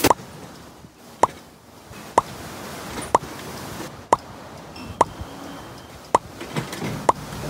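Evenly spaced sharp knocks, about one a second, each with a brief bright ring, over a faint steady background.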